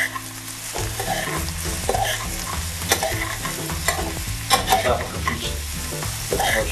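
Sliced champignon mushrooms frying in oil, sizzling steadily, while a spatula stirs them, with repeated irregular scrapes and clacks against the pan.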